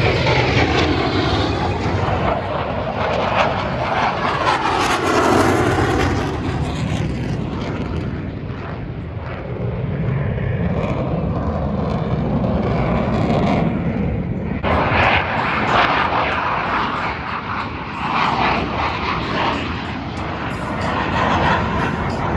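Jet aircraft flying past, a loud rushing engine noise whose pitch sweeps slowly as it goes by; a fresh burst of louder, brighter engine noise comes in suddenly about two-thirds of the way through.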